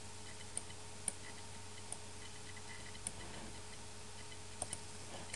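Faint computer mouse clicks: about six short, sharp ticks at uneven intervals, two of them close together near the end, over a steady low hiss of room and microphone noise.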